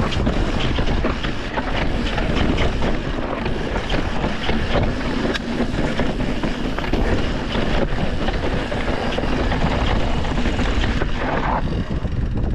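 Wind buffeting the microphone on a fast mountain-bike descent, with the tyres rolling over a rough dirt trail and many small knocks and rattles from the bike hitting bumps.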